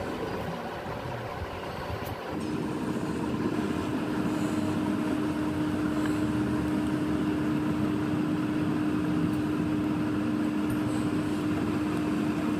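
A machine's steady hum, with a constant tone that comes in about two seconds in and holds.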